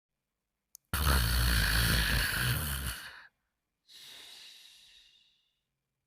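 Cartoon snoring sound effect: a loud snore on the in-breath with a low rattle, then a softer, hissing breath out that fades away.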